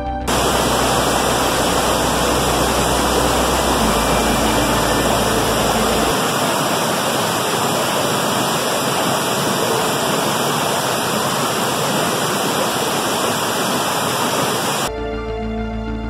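Waterfall pouring over a boulder into a pool: a steady, loud rush of water. Background music gives way to it just after the start and comes back about a second before the end.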